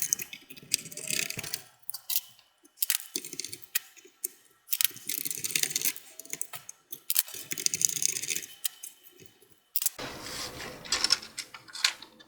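Irregular clicks, rattles and scraping of plastic and metal parts being handled as a cover is taken off a desktop PC's CPU fan and heatsink.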